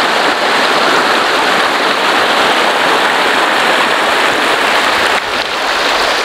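Shallow mountain stream rushing over a rocky bed, heard close up as a loud, steady rush of water.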